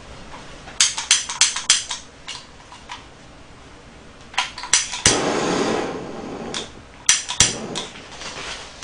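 Butane gas torch being lit: its igniter clicks several times in quick succession, then the gas catches with a hiss of flame for about a second and a half about five seconds in, followed by two more clicks.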